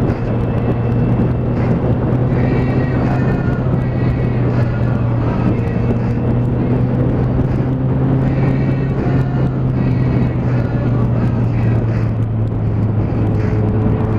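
Sport motorcycle cruising at a steady speed, its engine running at an unchanging low pitch under a heavy rush of wind noise on the microphone.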